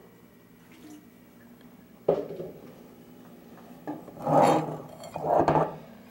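Handling noise: a sudden knock about two seconds in, then two short rubbing, scraping sounds near the end.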